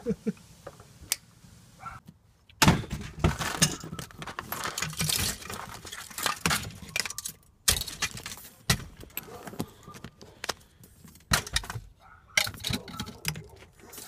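A few sharp snips in the first second, from wire cutters cutting through the harness wires. Then about ten seconds of close rustling, clinking and jangling handling noise, with many sharp clicks.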